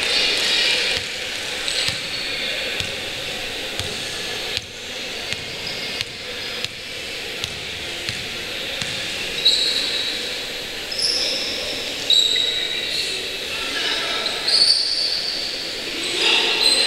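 Indoor basketball game: sneakers squeaking sharply on the court floor several times in the second half, over a ball bouncing and players' voices echoing in the hall.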